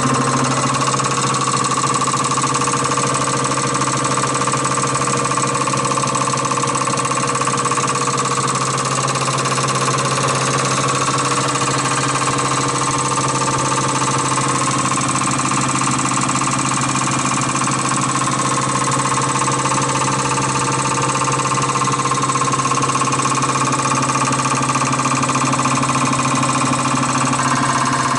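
Common rail injector test bench running, its drive motor and high-pressure pump making a steady mechanical hum with a constant whine.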